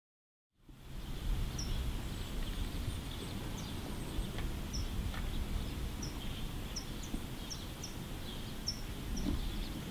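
Outdoor ambience fading in from silence: a steady low rumble with small birds chirping, short high chirps about once a second.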